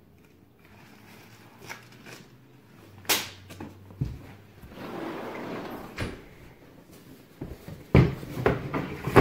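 A large fabric duffel bag being handled and carried: rustling with scattered knocks, then a cluster of louder thumps about eight seconds in as it is set down on a hard floor.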